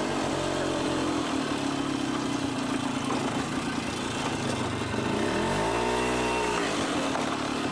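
ATV engine running steadily, then revved up and back down once, about five to six seconds in.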